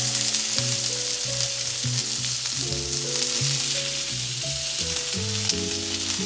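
Chopped onions sizzling steadily as they sauté in hot oil in a pan, with background music playing along.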